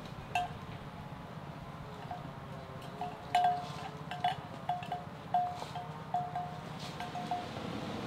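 A small metal bell clinking over and over at uneven intervals, each strike ringing briefly at the same pitch, over a steady low background rush.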